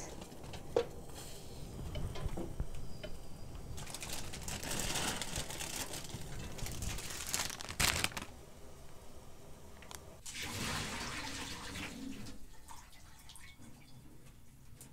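Bean sprouts blanching in a small pot of boiling water, the water bubbling, with a knock against the pot partway through. Near the end the pot is tipped and the hot water pours off through a colander into a stainless steel sink.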